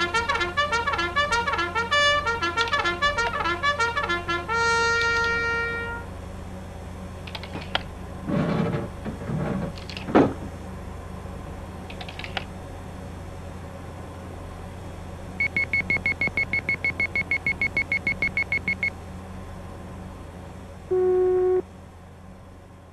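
Soundtrack music and electronic effects: a quick run of pitched notes ending in a held chord, then a few soft swishes and a sharp click, a rapid even beeping for about three seconds, and a short tone near the end, over a steady low hum.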